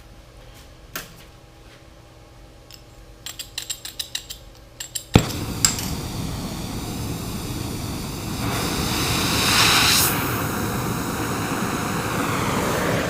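Oxy-acetylene cutting torch being lit: a quick run of sharp clicks, a pop as the gas catches about five seconds in, then the steady hiss of the flame, which grows louder a few seconds later.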